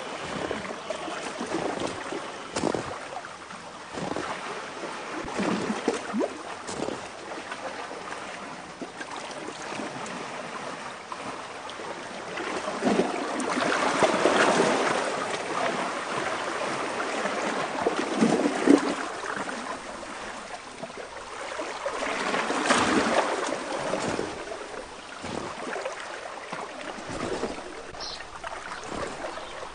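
Water splashing and lapping, with no steady tone, swelling louder twice.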